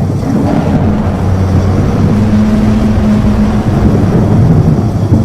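Loud, dense low rumble with steady low droning hums under it: a fictional analog-horror sound effect of the 'Tornado' apocalyptic event, a storm-like roar.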